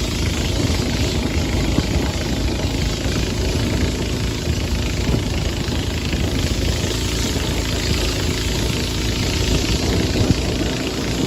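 Boat engine running steadily while under way, with a constant hiss of wind and water over it.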